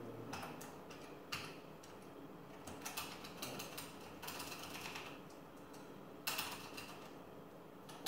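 Clicks of a computer keyboard and mouse in use: scattered single clicks with a short run of quick keystrokes a little past the middle.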